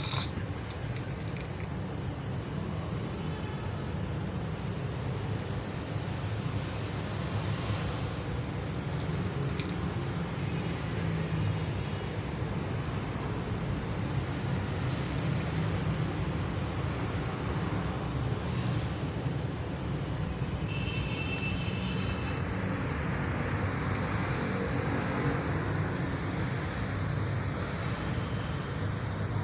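Steady high-pitched insect trill over a low, steady background rumble.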